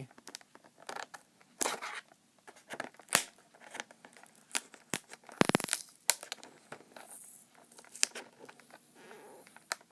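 Scissors snipping and tape tearing while opening taped toy packaging: irregular sharp snips and crackles, with a louder rip about five and a half seconds in.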